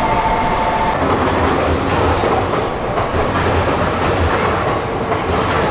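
A train moving along the platform, its wheels clacking over the rail joints above a steady rumble. A steady whine stops about a second in.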